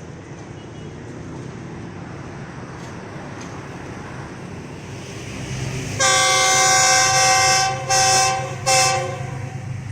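GE diesel-electric locomotive approaching, its engine rumble slowly growing, then its horn sounding about six seconds in: one long blast followed by two short ones.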